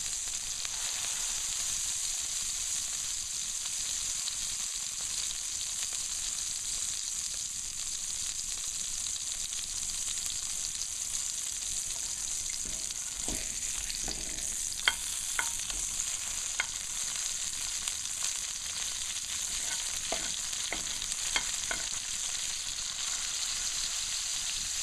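Two seasoned ground-beef burger patties frying in a pan, a steady sizzle nearly done cooking, with a few sharp pops in the second half.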